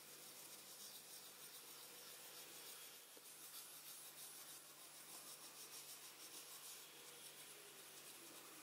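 Faint scratching of pencil lead rubbed quickly in small circles and side to side over paper laid on a coin, with a low steady hum underneath.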